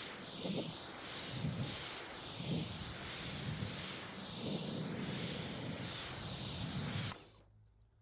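Pressure washer jet spraying with a steady hiss, its tone sweeping up and down as the spray is moved across surfaces; it cuts off suddenly about seven seconds in.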